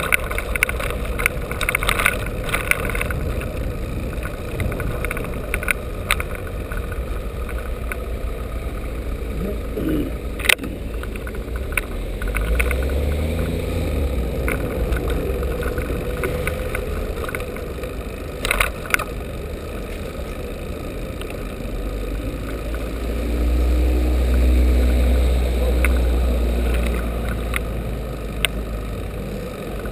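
Street noise from a bicycle riding in city traffic: a steady rumble of tyres and wind with scattered sharp clicks and knocks as it crosses cobblestones. Nearby motor vehicle engines swell up twice, the louder one about three-quarters of the way through.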